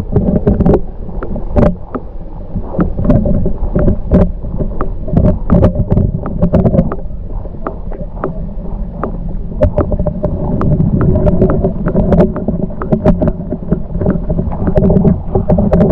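Lake water sloshing around and knocking against a camera held just under the surface, heard underwater: a heavy muffled rumble with frequent clicks and knocks.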